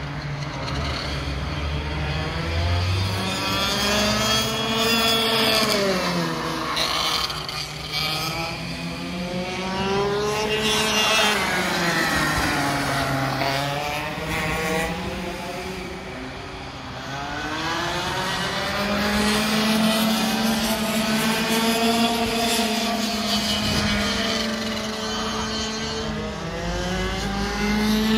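Several racing karts' two-stroke engines running on the circuit, overlapping, their pitch falling and rising again and again as the karts slow and accelerate around the track.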